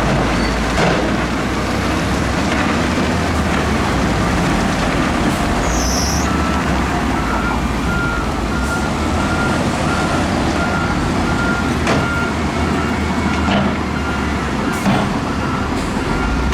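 Heavy earthmoving machinery running hard, with scattered metallic knocks. From about six seconds in, a reversing alarm beeps steadily, about two beeps a second.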